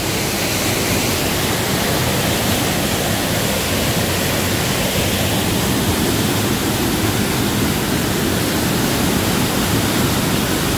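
Steady rush of white water from a small mountain waterfall pouring into its plunge pool, an even noise with no breaks.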